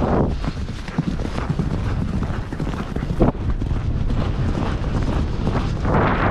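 Hoofbeats of ridden horses on a trail, many irregular strikes, with wind rumbling on the microphone.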